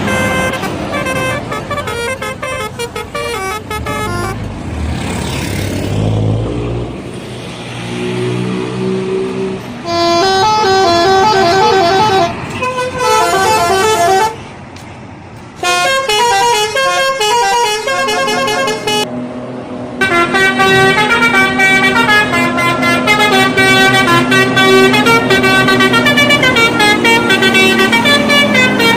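Indonesian bus telolet horns, sets of multi-trumpet musical air horns, playing quick stepping melodies in repeated short phrases over bus engine and traffic noise. A bus's low engine rumble passes about five seconds in, the horns drop out briefly about halfway, then play on without a break over the last third.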